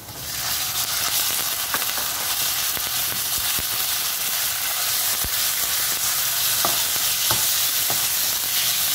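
Marinated pork slices dropped into hot oil in a wok, sizzling at once and then frying steadily. Now and then a spatula taps and scrapes as it stirs them.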